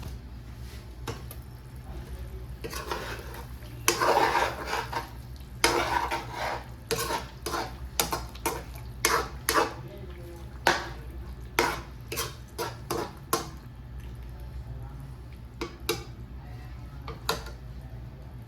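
A spoon stirring and scraping in a metal karahi pan: a run of clinks and scrapes through the middle, fewer near the end, over a steady low hum.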